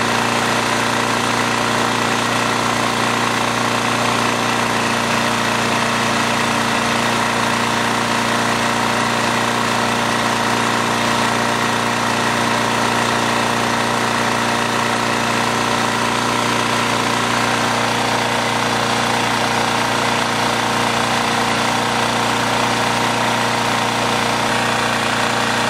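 Coleman Powermate 1500 portable generator's small engine running at a steady speed, an even drone with a buzzing rattle.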